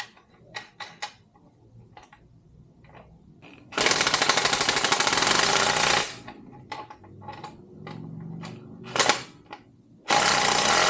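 Impact wrench hammering in two bursts of about two seconds each, with a short blip between them, running the swingarm extender's nuts and bolts down tight. Light clicks and clanks of tools being handled in the gaps.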